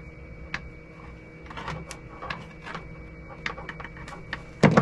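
Cutters working through heavy-gauge electrical cable: a run of small clicks and crunches, then a loud snap near the end as the cable gives.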